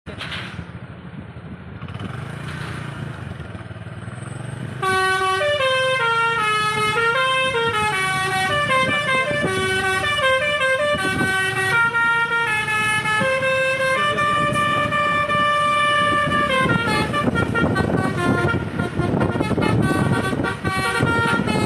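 Vehicle rumble for the first few seconds, then about five seconds in a bus's basuri telolet horn, a multi-tone musical air horn, starts playing a loud stepping melody. It holds one long note near the two-thirds mark and carries on over rougher engine noise toward the end.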